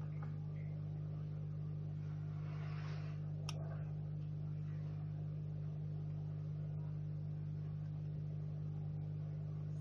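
Steady low electrical hum of a hot air gun running while it heats a phone's screen to soften the adhesive holding the touch and display. A single sharp click comes about three and a half seconds in.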